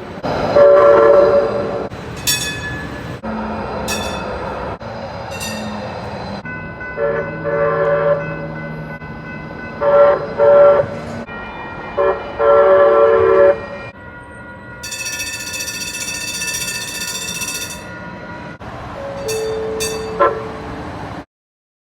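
Edmonton LRT light-rail trains sounding their horns and warning bells in a run of short clips. There are several short horn blasts and a few single bell dings, with one longer, high, bright ringing partway through.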